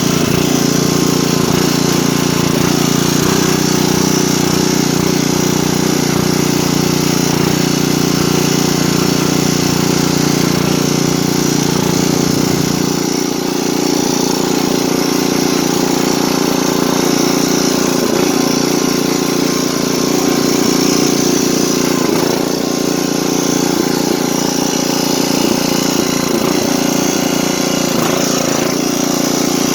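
Engine of a 1980s Craftsman riding lawn tractor running steadily as the tractor is driven. A little under halfway through, the deepest part of its sound drops away.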